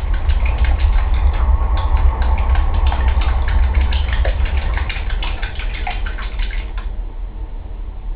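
A hairless Sphynx cat's front paws rapidly slapping and splashing shallow bathwater, many quick splashes that stop about seven seconds in, over a steady low rumble.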